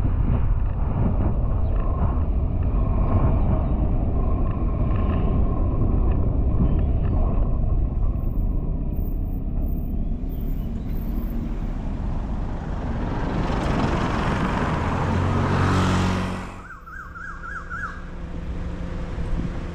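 Car driving on the road: a steady low rumble of road and wind noise. A swell of noise rises over several seconds and cuts off suddenly about sixteen seconds in, leaving it quieter.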